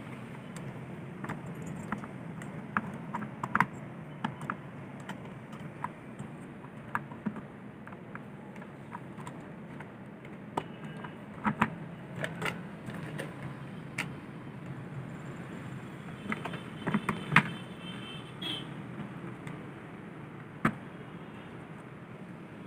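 Irregular clicks and light knocks of an opened induction cooktop's parts being handled by hand: the copper heating coil pressed and set in place, then the power cord moved. A low steady hum runs underneath.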